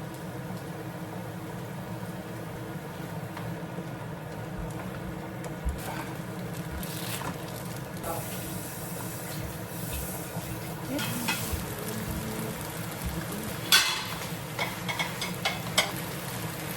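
Food sizzling in a frying pan, with a few light clinks of a utensil against the pan near the end.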